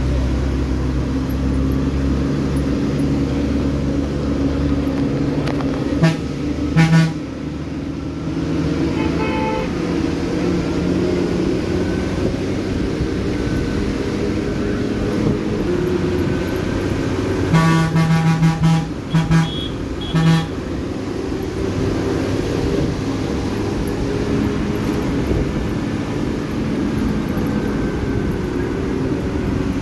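Bus engine running steadily under road and wind rumble, heard from inside a Tamil Nadu state bus on the ghat road to Kodaikanal. A horn honks in short blasts: two about six seconds in, then a quick series of four or five around eighteen to twenty seconds.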